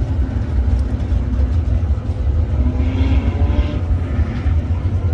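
Several race car engines running as the field circles at slow caution pace: a steady, deep rumble with engine pitches gently rising and falling.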